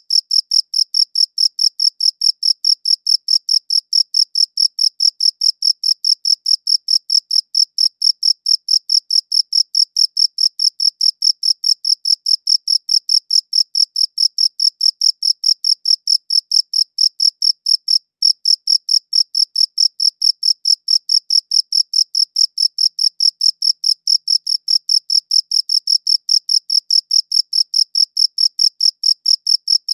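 Cricket chirping in a steady, even rhythm of about five short, high-pitched pulses a second, with one brief break near the middle.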